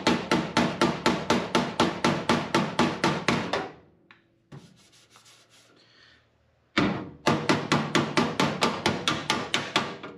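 A body hammer strikes the sheet-steel floor panel edge against a hand-held dolly, hammer-on-dolly work to stretch and form the metal. The blows come about five a second, each one ringing. They stop a little under 4 s in and resume about 7 s in.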